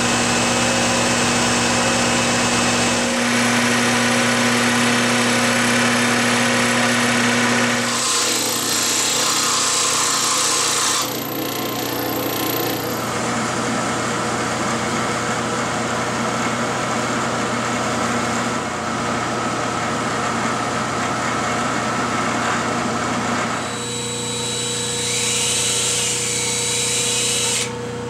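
Workshop machine tools running in turn as holes are drilled in wooden chime parts: a metal lathe spinning with a drill bit fed from its tailstock, then a milling machine's spindle drilling, and a handheld cordless drill in the last few seconds. The steady motor hum changes abruptly several times.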